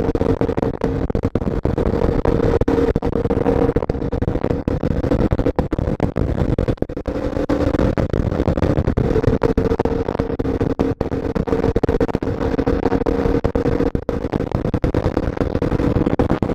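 Superbike engine running at a steady cruise, an even hum that holds pitch, under loud wind buffeting on the helmet-mounted microphone.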